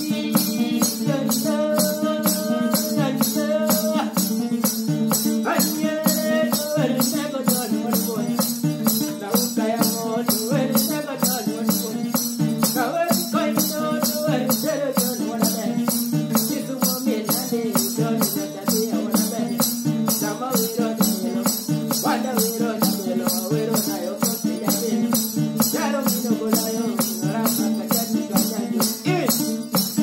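Nyatiti, the Luo bowl lyre, plucked in a repeating melody over a steady fast rattling beat kept by the player's foot.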